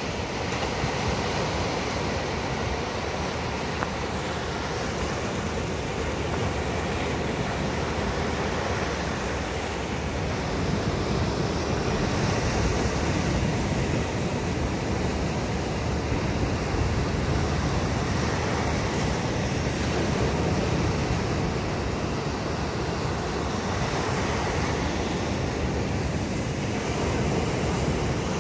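Sea surf breaking and washing up on a sandy beach: a steady rushing noise that swells and eases with the waves.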